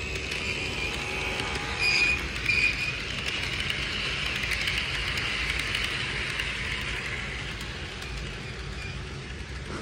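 Model train running past on its track, its running noise swelling as it passes close and then fading, with two short high-pitched toots about two seconds in.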